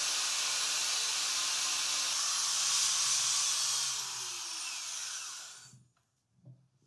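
Angle grinder with a knotted wire cup brush scouring paint off a cast steel anvil: a loud, steady hiss of the wire on metal over the motor's hum. About four seconds in the grinder comes off the work and winds down, its pitch falling until it stops about six seconds in.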